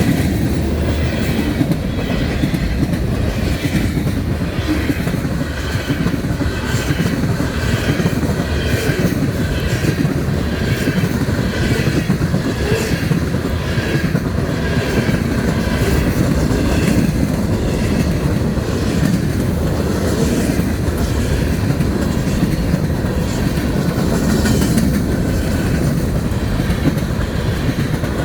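Freight train cars rolling past at close range: a steady heavy rumble with rhythmic clickety-clack from the wheels.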